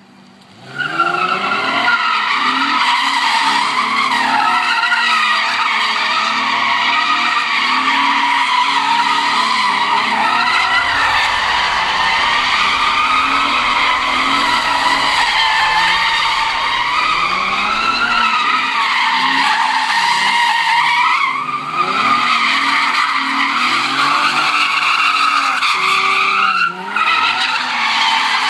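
Car tyres squealing almost without pause, a long wavering high screech as in a burnout or drift, with an engine running underneath. It breaks briefly about 21 and 27 seconds in.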